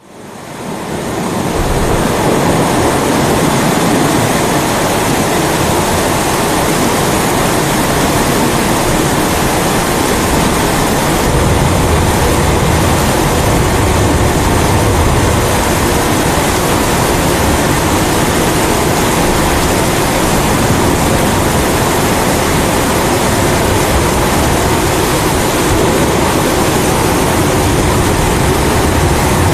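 Kerosene pressure stove (primus) burning with a steady rushing hiss, mixed with steady rain. It fades in over the first second or two, and a deeper low rumble joins about eleven seconds in.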